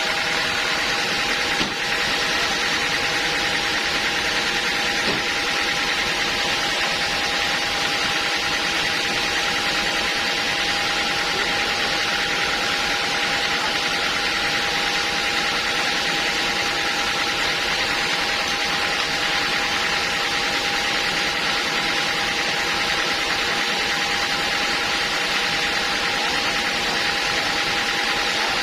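Sawmill machinery running steadily: a constant mechanical noise with a steady whine through it.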